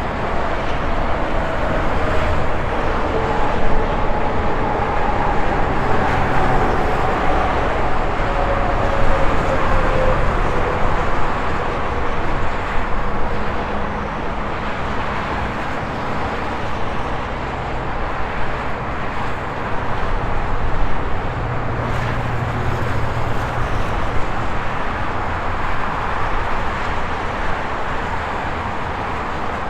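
Highway traffic with a steady rush of tyres and engines as vehicles pass. A few seconds in, one passing vehicle's whine drops in pitch as it goes by, and a heavier low rumble swells about two-thirds of the way through.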